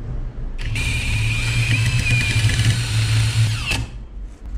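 Cordless 18 V impact driver driving a screw into a wooden board: a steady high motor whine over a heavy low hammering hum for about three seconds. It stops near the end with a falling whine as the motor spins down.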